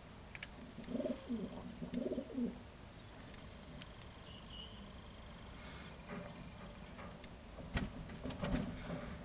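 Fantail doves cooing in a loft: a run of low coos about a second in and again near the end, with fainter high chirps in between and a couple of sharp clicks near the end.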